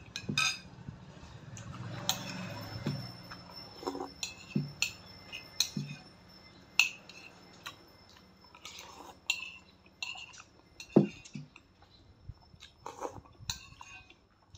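Metal spoon clinking now and then against a ceramic soup bowl while someone eats instant noodle soup, with sipping, slurping and chewing between the clinks.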